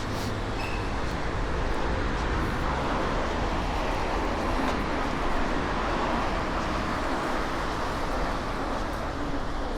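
Steady rush of strong wind buffeting the microphone, with a low rumble throughout and a broad rushing swell that builds and fades in the middle.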